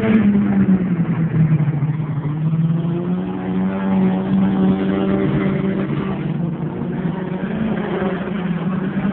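Dirt-track race car engines running hard as the cars circle the oval, the engine note rising and falling as they go around.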